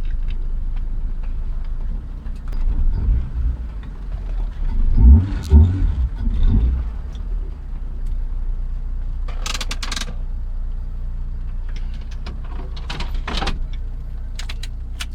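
Honda B20 VTEC engine running steadily, with louder surges of revving about three and five to six seconds in. Brief sharp clattering clicks come twice in the second half.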